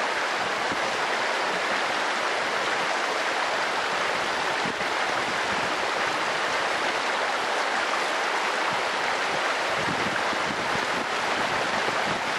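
Shallow mountain stream rushing over rocks and pebbles, a steady even rush of water. A low rumble joins in near the end.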